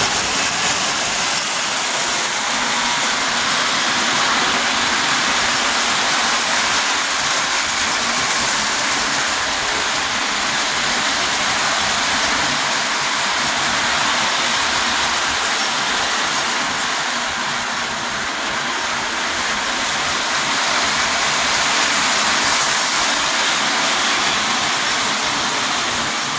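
Lionel post-war electric model steam locomotives and tinplate passenger cars running on three-rail tinplate track: a steady mechanical whir of the motors mixed with the clatter of metal wheels on the rails.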